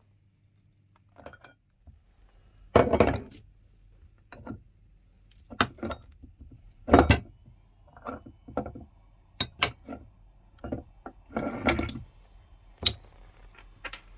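Irregular knocks and clinks of hard objects being handled, about a dozen over several seconds, the loudest about three and seven seconds in.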